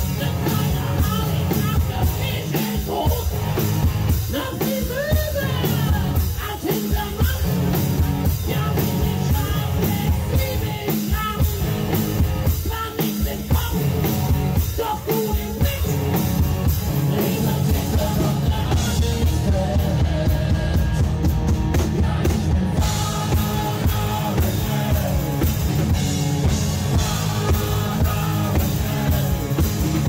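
Rock music with singing over a steady drum beat.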